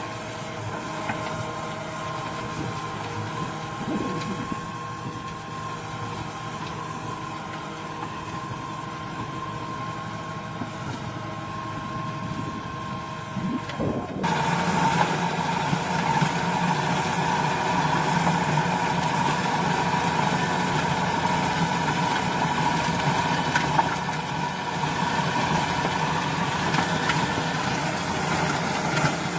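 Engines of farm machinery running steadily. About halfway through, the sound switches abruptly to a different, louder machine.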